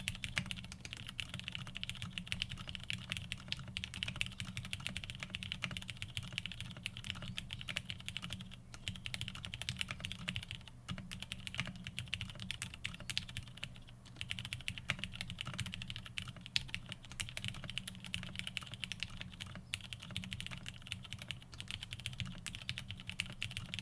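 Continuous typing on a custom Frog TKL mechanical keyboard with an FR4 half plate, lubed and filmed Cherry MX Black Hyperglide linear switches and PBT keycaps: a dense stream of keystroke clacks with a few brief lulls, over a steady low hum.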